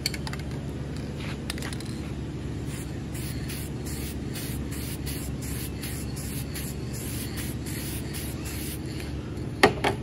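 Aerosol can of Cummins Apex Red engine paint hissing as it sprays a bare cylinder head, in short repeated bursts. A sharp knock comes near the end.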